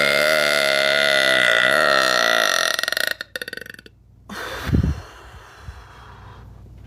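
A woman's long, loud, drawn-out belch, held on a steady pitch for about three seconds before it sputters out. A short low thump follows about five seconds in.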